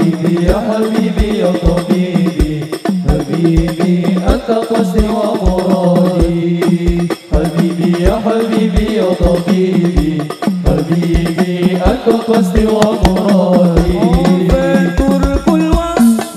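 Hadroh sholawat music: a male group singing devotional Islamic chant with frame drums, over a steady, even drum beat.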